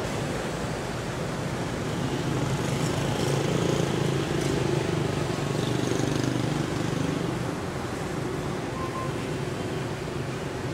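Steady road traffic noise, with a motor vehicle engine passing that grows louder from about two seconds in and fades again a few seconds later.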